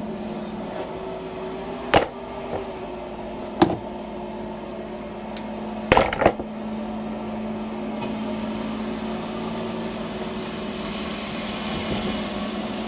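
A steady machine hum, with sharp knocks or clanks about two seconds in, again a second and a half later, and a quick double knock at about six seconds.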